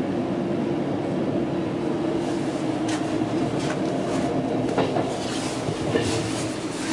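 Double-decker Stadler KISS electric train running, heard from inside the carriage by the doors: a steady rumble and hum, with irregular clicks and knocks from about three seconds in.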